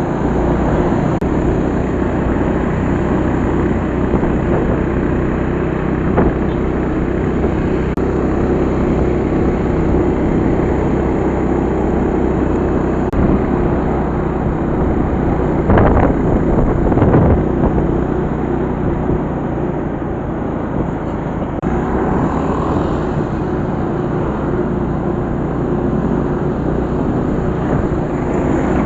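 Steady running noise of a moving road vehicle, engine hum and road noise, with two brief louder knocks about halfway through.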